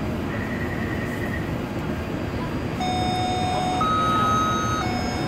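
Metro train door-closing warning chime: two tones, one low and one high, alternating about once a second, starting about halfway through, over the steady hum of the stationary train car.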